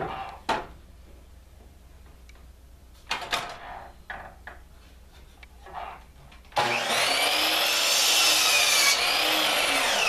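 A pine board knocks and slides on the saw table as it is set in place. About two-thirds of the way in, a Skilsaw sliding miter saw's motor starts with a loud whine and its blade cuts through the board.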